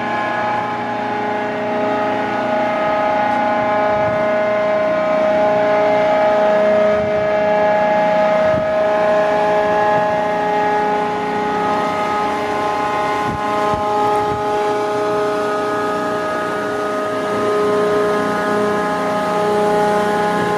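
Heavy floating crane's machinery running with a steady whine and drone; its pitch shifts slightly a few times.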